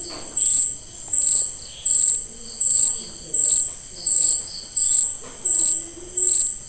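Cricket chirping: a high, even chirp repeating about every 0.7 seconds.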